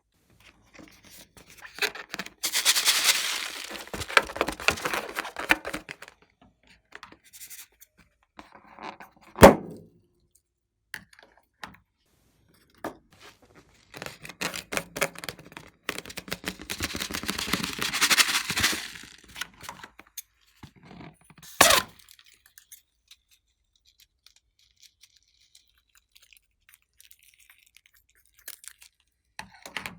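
Slime-mixing handling sounds: two long stretches of crackly, sticky noise with a sharp knock between them and another shortly after the second.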